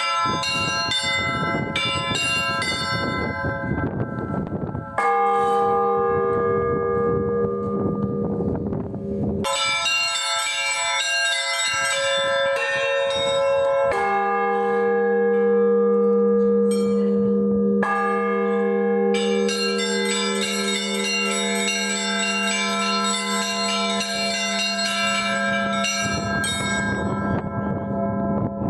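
Russian Orthodox church bells rung by hand: quick repeated strikes on the small bells, with deeper bells struck every few seconds and left ringing under them. The deepest bell comes in about halfway through and hums on to the end.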